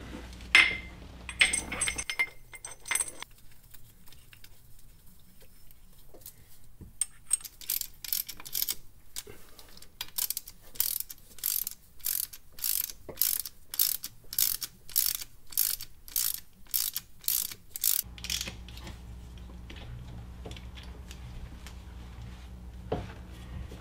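Socket ratchet clicking in an even run of strokes, about two a second, as the bolts holding the underdrive pulley to the harmonic damper are run down with a 12-point socket. A few metallic clinks come first, near the start.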